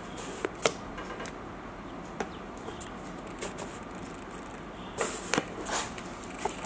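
Takeaway food packaging being handled: a few light clicks, then a short burst of rustling and crinkling about five seconds in.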